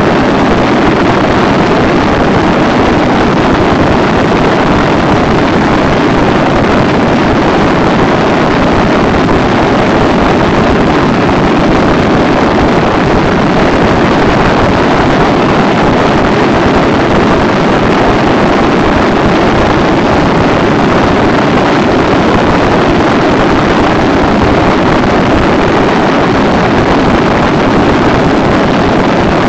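Steady rush of wind on the microphone over the drone of a Honda ST1300 Pan European's V4 engine, cruising at an even speed.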